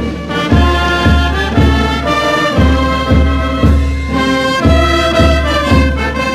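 Background march music with brass over a steady low drum beat, about two beats a second.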